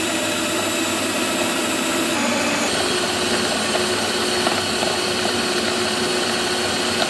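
Electric hand mixer on its stand base running steadily, its twin beaters creaming butter and sugar into batter. Its motor hum shifts slightly in pitch about two and a half seconds in.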